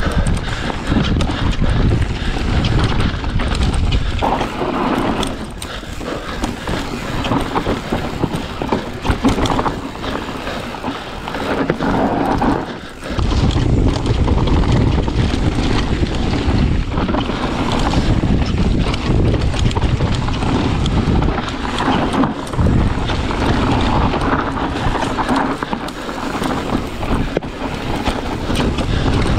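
Wind rushing over an action camera's microphone during a mountain-bike descent, with the bike and its tyres rattling and clattering over the dirt and stones of the trail.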